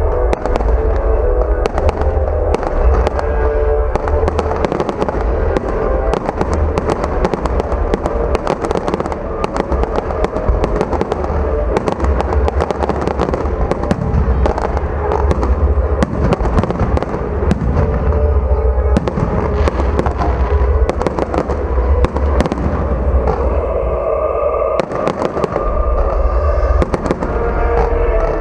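Fireworks display: a dense run of bangs and crackles with a deep rumbling boom, over music playing steadily underneath.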